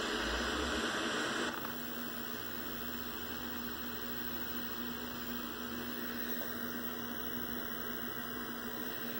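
A 1986 Montgomery Ward 13-inch colour TV just switched on, hissing with static from its speaker over a steady low hum. There is a brief low rumble in the first second, and the hiss drops in level about a second and a half in.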